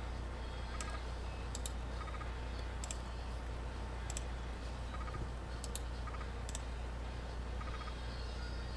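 Light, sharp clicks of a computer mouse, about one a second and sometimes doubled, over a steady low electrical hum.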